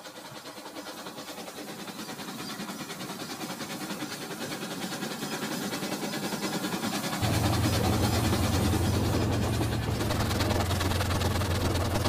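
Rail King toy trains running on plastic track: motors whirring and wheels clicking rapidly over the rails, growing louder as a train approaches. About seven seconds in, a deeper steady hum joins as a train runs close by.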